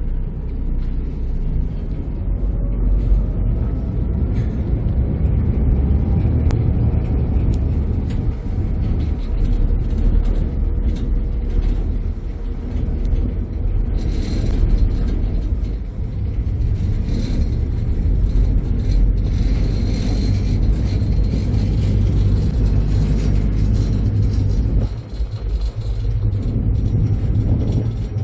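Steady low rumble of a ferry under way, its engines and the rush of wind and water heard from the open deck, with a short dip in level near the end.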